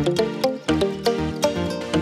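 Background music: a quick instrumental tune of sharp, pitched notes over a steady, galloping beat.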